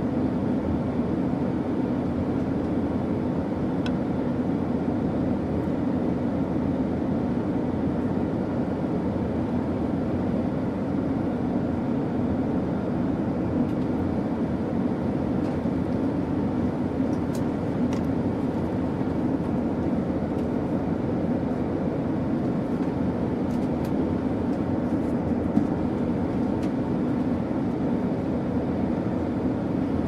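Airliner cabin noise in flight: a steady, even drone, strongest low in pitch, with a few faint clicks in the second half.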